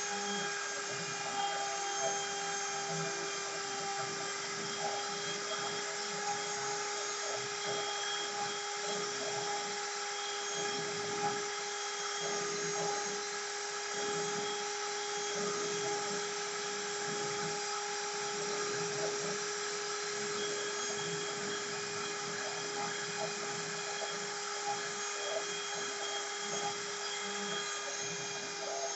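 CNC router spindle running with a steady high whine, with an uneven rough cutting noise beneath it as the bit works through the material.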